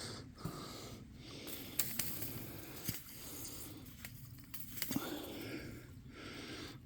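Water running out of a gravity-fed spring water line, with rustling, scraping and a few sharp knocks as the pipe is moved and angled by hand.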